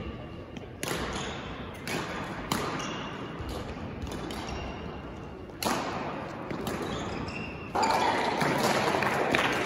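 Badminton rally in a gym: sharp racket strikes on the shuttlecock, several of them a second or so apart, with short shoe squeaks on the court floor. The noise grows louder for the last couple of seconds.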